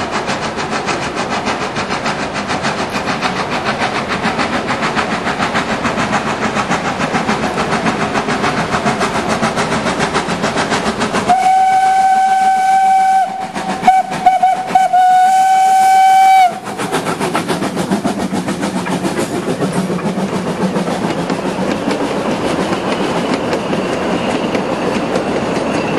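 Victorian Railways G42, a 2-6-0+0-6-2 narrow-gauge Garratt steam locomotive, working hard with a fast, steady run of exhaust beats as it approaches. About eleven seconds in it sounds its steam whistle, one loud steady note held for about five seconds with two brief breaks. The beats return as the locomotive and its carriages pass, with wheels clicking over the rail joints.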